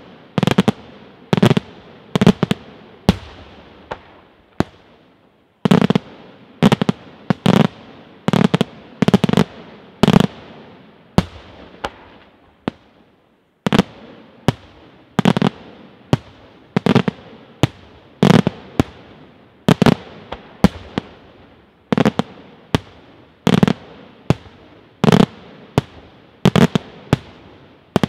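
Daytime aerial fireworks: a long run of loud bangs from shells bursting overhead, often two or three in quick succession, each with a short echoing tail. The bangs break off in brief lulls about five seconds in and again about thirteen seconds in.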